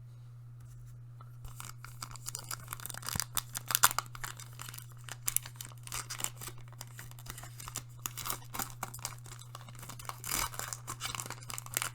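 Pokémon TCG booster pack's foil wrapper being torn open and crinkled by hand. Irregular crackling tears and rustles start about a second in and are loudest a few seconds later, over a steady low hum.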